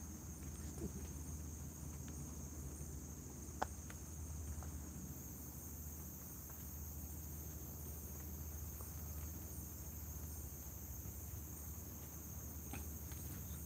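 Night insects, crickets among them, chirping steadily in a high, continuous drone. A single sharp click sounds about three and a half seconds in.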